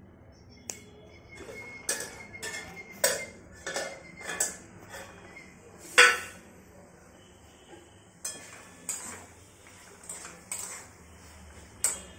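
Metal spatula stirring in an aluminium pan, scraping and knocking against its sides in irregular strokes, with one loud metallic clank about halfway through.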